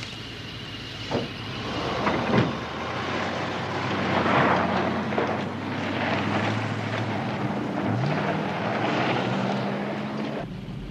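Two thuds of a GMC van's doors shutting in the first few seconds, then the van's engine running as it pulls away and drives off, with tyre and gravel noise. The engine pitch rises about eight seconds in as it speeds up.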